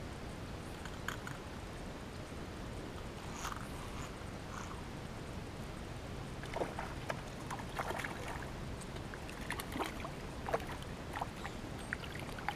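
Scattered small clicks and knocks of fishing rods and tackle being handled in a small boat, over a steady low rumble; the clicks grow busier about halfway through.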